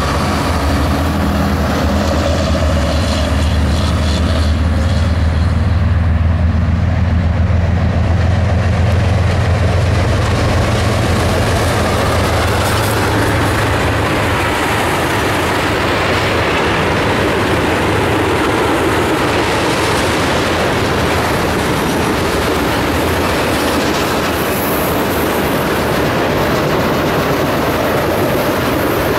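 CSX diesel freight locomotives passing with a steady deep engine rumble. The rumble fades after about twelve seconds into the continuous rolling noise of tank cars' steel wheels on the rails, with some clickety-clack.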